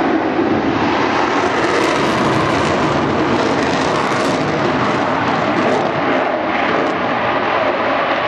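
Eurofighter Typhoon's twin EJ200 turbofan engines in flight: steady, loud jet noise.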